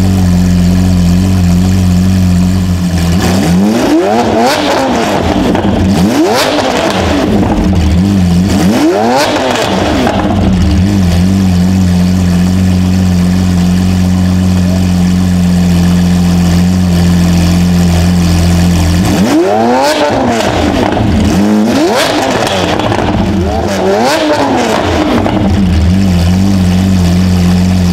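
Straight-piped Lamborghini Aventador's 6.5-litre V12 idling with a deep, steady drone, then being revved hard in quick blips. A cluster of sharp revs rising and falling comes about three to ten seconds in, then steady idle, then another cluster of revs from about nineteen to twenty-six seconds in. Deafening.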